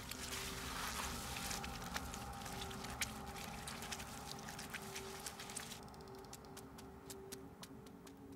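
Soft rustling and squelchy wet noise, with a few sharp clicks, over a quiet steady low tone. About two-thirds of the way in the rustling drops away, leaving scattered clicks.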